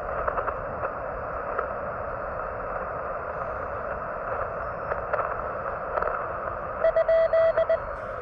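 Receiver hiss and faint static from a QRP ham radio transceiver on the HF band, heard through a small speaker while the operator tunes. Near the end comes a quick run of loud Morse code tones, about six dits and dahs at one steady pitch, fitting a question mark.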